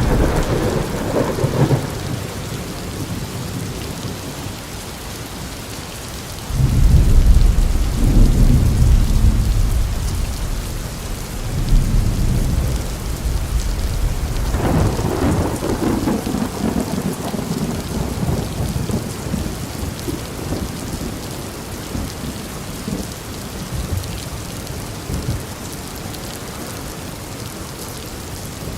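Rain sound effect: a steady hiss of rain with rolling thunder. The loudest rumble breaks suddenly about six and a half seconds in and rolls on for several seconds, with weaker rumbles around twelve and fifteen seconds in.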